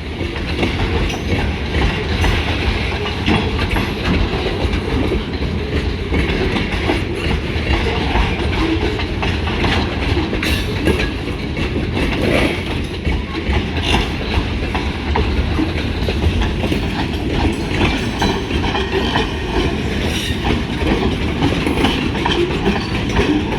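Freight train cars rolling past close by: a steady rumble with the wheels clattering over the rail joints.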